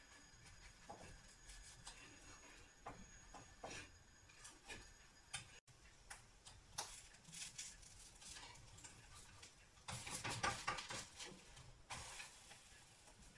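Light clicks and taps of a spatula against a nonstick frying pan as a pancake is worked in it, with a louder flurry of scraping and clicking about ten seconds in as the pancake is turned.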